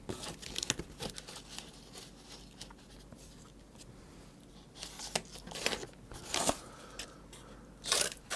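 Corrugated cardboard handled on a cutting mat: light knocks and rustles, then a few scratchy strokes past the middle. Near the end, scissors start cutting through the card with sharp, crunchy snips.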